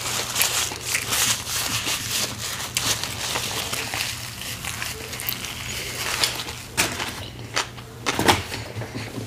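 Paper napkin rustling and crinkling close to the microphone as a mouth is wiped, then a few sharp crinkles of a paper takeout bag being grabbed near the end, the loudest of them about eight seconds in.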